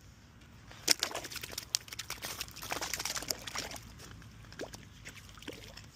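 Water splashing and dripping, with many quick irregular clicks and taps, busiest in the first half and thinning out toward the end.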